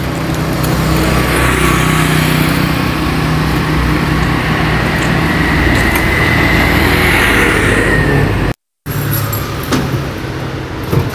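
Street traffic: a motor vehicle running close by with a steady low hum and a faint whine. The sound cuts out for a moment near the end.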